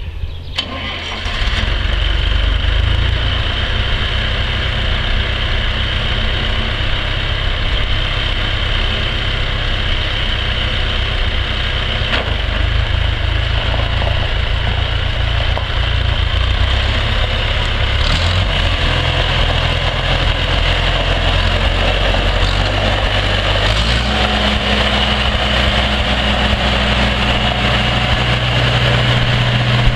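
John Deere 2020 tractor's four-cylinder gasoline engine running as the loader tractor drives. It grows louder about a second in, and its note changes about three-quarters of the way through.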